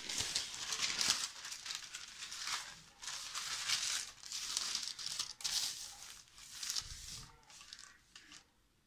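Sheet of parchment paper rustling and crinkling as it is laid over a cake in its baking tray and smoothed down by hand, in a run of irregular bursts that fade near the end.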